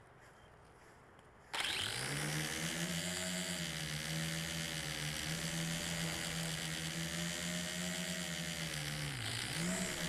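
Quadcopter motors and propellers spinning up abruptly about a second and a half in, heard close from the drone's own camera: a loud, steady buzzing whine that wavers slightly in pitch with the throttle as it flies. Near the end the pitch dips and warbles up and down as the throttle is worked.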